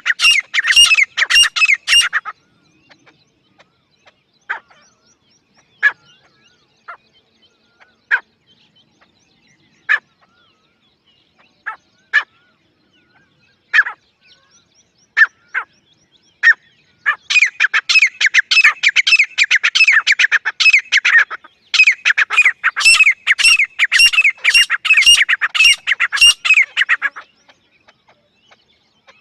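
Grey francolin calling. A fast run of loud, harsh repeated notes opens, followed by scattered single call notes. Two long runs of rapid repeated calls come near the end, then the calling stops.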